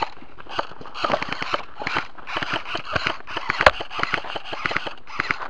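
Footsteps moving fast through dry leaves and brush: dense, irregular crunching and crackling from about a second in, with one sharp snap near the middle.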